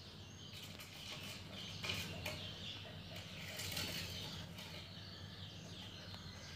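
Faint high chirping of birds over a low steady hum, with a couple of light clicks about two seconds in.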